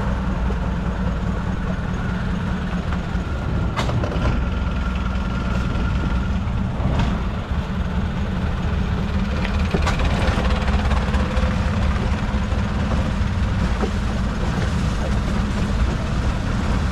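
Boat engine running steadily, a constant low hum, with a few sharp knocks over it.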